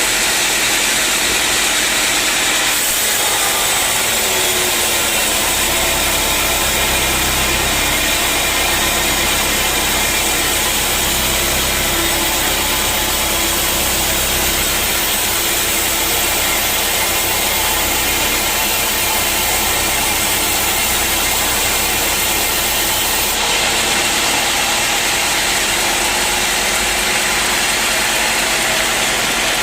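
Sawmill running steadily while the saw cuts through a teak log. A deeper hum comes in about five seconds in and drops away near the end.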